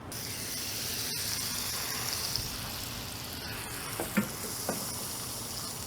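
Grilled cheese sandwich frying in a cast iron skillet: a steady sizzle.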